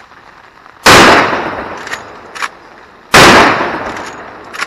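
Two rifle shots from a .35 Marlin lever-action rifle, about two seconds apart, each ringing out for about a second. Short clicks come between the shots as the lever is spun to cycle a new round.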